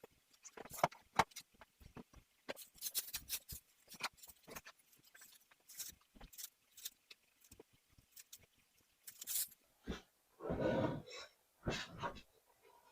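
Close handling noises from a porcelain doll and its cloth body being worked on by hand: a run of small clicks, taps and rustles, with a louder rasping burst of under a second about ten and a half seconds in.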